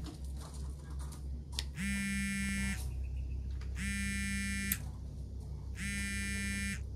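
An electronic buzzer sounding three times, each buzz about a second long and about two seconds apart, over a steady low hum.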